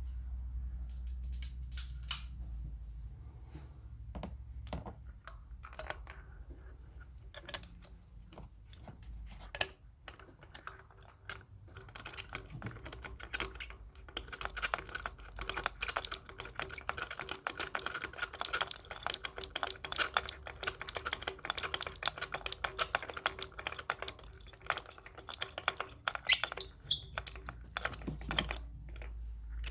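Socket ratchet clicking rapidly and steadily for a long stretch in the middle while a spark plug is being turned. It is preceded by scattered knocks and clicks of tools being handled, with a few louder knocks near the end.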